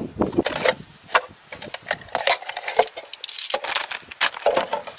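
Irregular metallic clicks and knocks of a compact folding camp gas stove burner being handled.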